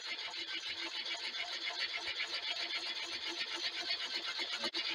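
Homemade alpha-type Stirling engine running at about 200 RPM against a bicycle-brake pony brake, a steady fast mechanical clatter of several beats a second. The sound dips briefly near the end.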